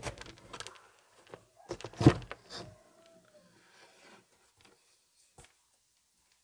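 The perforated back panel of a 1955 Telefunken Operette 6 tube radio being worked free by hand, with a run of small knocks, rattles and scrapes and one sharp knock about two seconds in. A few faint clicks follow as the panel comes away.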